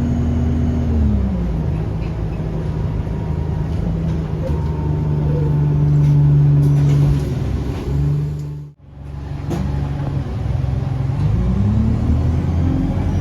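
Single-decker bus diesel engine heard on board. The engine note falls in pitch over the first second or so as the bus eases off, holds steady, cuts out abruptly for a moment a little before 9 seconds, then rises again near the end as the bus pulls away.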